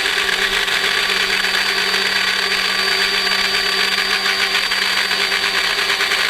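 Proxxon MF 70 micro milling machine running steadily with a constant high whine, its small cutter milling a shallow groove into wood.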